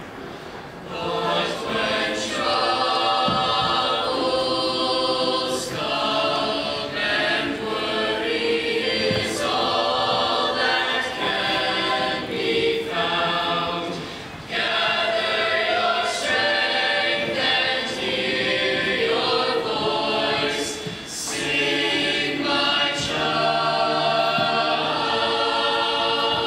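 Mixed-voice school choir singing in harmony, holding chords through long phrases, with a short break between phrases about halfway through.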